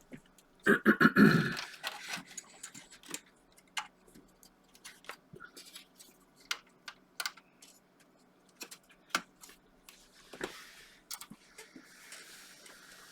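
Clicks, knocks and rattles of a floppy drive and its cable being handled and plugged into an IBM PC 330, with a louder clatter about a second in and scattered sharp clicks after.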